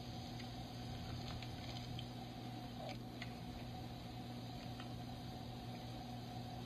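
Faint room tone: a steady low hum with a few soft, scattered ticks.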